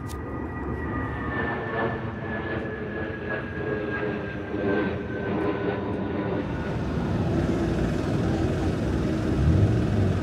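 Steady engine rumble with a high whine that slowly falls in pitch, growing a little louder toward the end.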